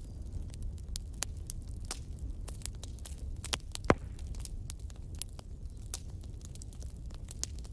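Wood fire in a fireplace burning damp logs, crackling with frequent sharp snaps over a steady low rumble of the flames, with one loud pop about four seconds in.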